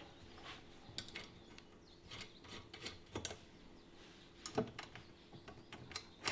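Faint, scattered small metal clicks and taps of bolts and lock nuts being fitted by hand to a lawn spreader's steel stabilizer plates and frame, with a few sharper clicks about a second, three seconds and four and a half seconds in.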